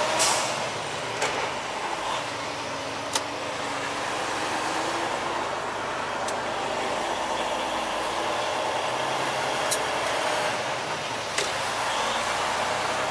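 Inside a semi truck's cab while driving: steady engine and road noise, the engine pitch shifting slowly as it pulls through a turn. About six sharp clicks or knocks come at uneven intervals, the loudest right at the start.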